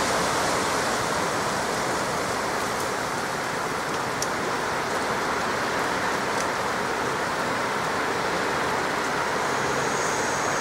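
Strong, gusty wind blowing as a steady rush, with a few faint ticks over it.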